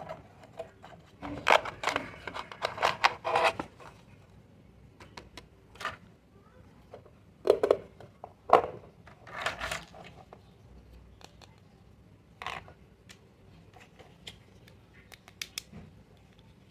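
Small plastic toy pieces and packaging being handled and unpacked: scattered clicks, taps and rustles. They come in two busier flurries, one from about a second in to three and a half seconds and another around eight to ten seconds, with single clicks later on.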